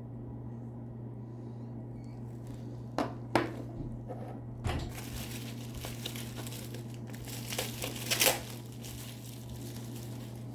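Wrapping crinkling as a small item is unwrapped by hand, with two sharp clicks about three seconds in and the crinkling loudest near the end, over a steady low hum.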